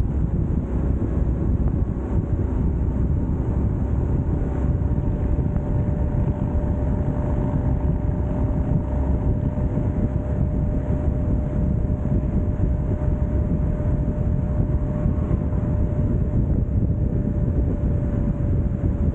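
Steady rumble of wind on the microphone and road noise while travelling along a highway, with a faint steady whine held throughout.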